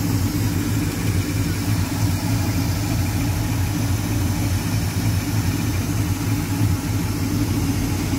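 1987 Chevrolet square-body pickup's gasoline engine idling steadily with the radiator cap off. Air is coming up through the radiator coolant, which the owner fears could mean a bad head gasket or a cracked block.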